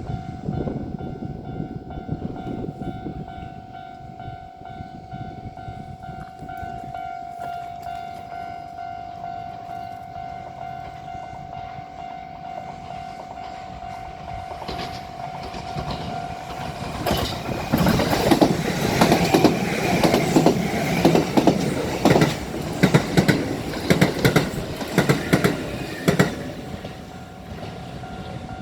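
A Japanese level-crossing warning bell rings steadily. About 17 seconds in, a four-car Kintetsu 5200 series express train comes through the crossing, much louder, with a rapid clatter of wheels over the rail joints, then eases off near the end.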